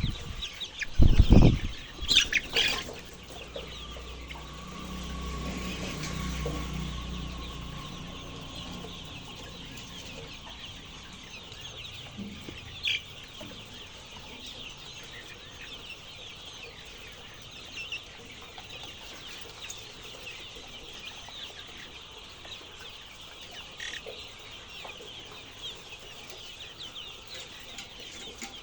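A flock of farm chickens clucking and calling without pause, a dense chatter of many birds. There are a couple of loud knocks about a second in, and a low rumble a few seconds later.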